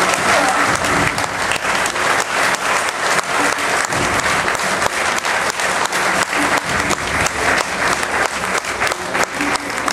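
Audience applauding, dense clapping throughout.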